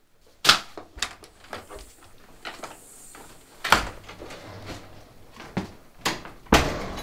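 Several separate knocks and thumps from a wooden door and a hardwood floor, typical of a front door being handled and shut and footsteps crossing the floor. The loudest come about half a second in, near the middle and near the end, the last two with a deep thud.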